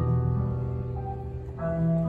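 Grand piano chords held and ringing over a low sustained double bass note, with a new chord struck about one and a half seconds in.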